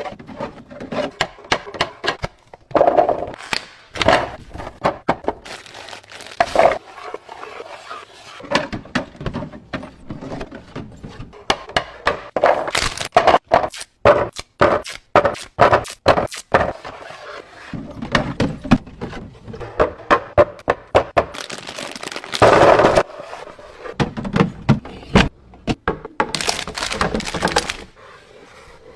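Groceries and containers being handled and set down while restocking a refrigerator: a long run of clicks, knocks and rustling, with a louder thunk every few seconds as items are placed.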